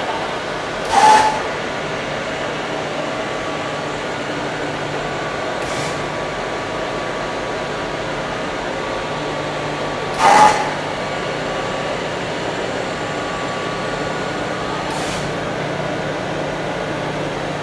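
Egg tray (pulp-moulding) making machine running with a steady mechanical hum. Short hissing bursts come roughly every four and a half seconds, two of them loud, about a second in and about ten seconds in.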